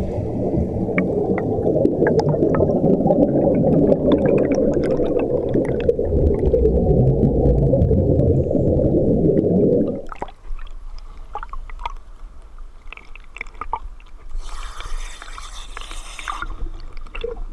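Exhaled scuba bubbles rushing over an underwater camera housing as a diver ascends: a loud, dense bubbling rumble that cuts off suddenly about ten seconds in. It is followed by quieter water sounds with scattered clicks and a short hiss of splashing water near the end.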